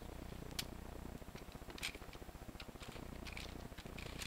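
A few light plastic clicks as a K'nex model is handled and turned in the hands, over a faint low hum.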